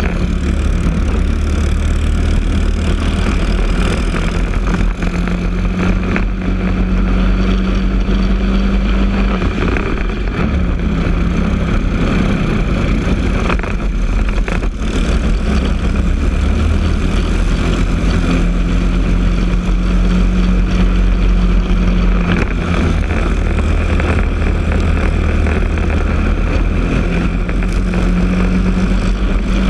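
Briggs & Stratton LO206 single-cylinder four-stroke kart engine running under racing load, heard from on board. The pitch drops in the middle as the kart slows through a corner, then climbs steadily as it accelerates out.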